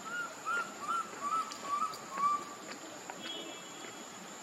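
An animal's short chirping calls: six arched chirps in quick succession, about two a second, each a little lower than the last, then a brief higher call about three seconds in.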